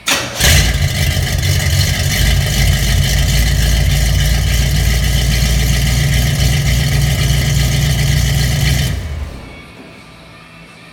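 A V8 engine swapped into a 1954 Chevrolet 3100 pickup starts up and runs steadily through a homemade exhaust, with a strong low note, then shuts off about nine seconds in.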